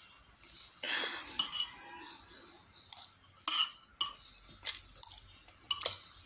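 A metal fork clinking and scraping against a plate and rice bowl while eating, with about seven sharp separate clinks.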